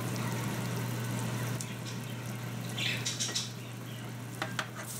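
A pot of soy-sauce braising liquid simmering around a whole duck, a steady bubbling hiss over a low steady hum, with a few light clicks near the end.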